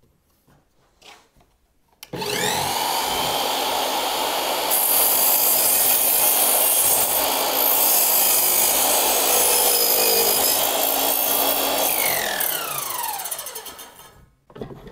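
Trend MS184S2 sliding mitre saw starting suddenly about two seconds in, its motor spinning up to speed. The blade then cuts through a piece of timber for several seconds. Near the end the saw is switched off and the blade winds down, its pitch falling.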